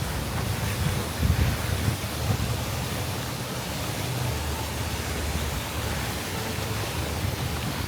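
Wind buffeting the microphone: a steady rushing hiss with uneven low rumbling gusts, a stronger gust about a second in.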